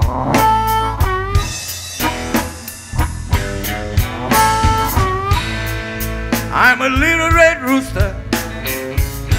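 Blues band playing: electric guitar with bent, wavering notes over bass and a drum kit keeping a steady beat.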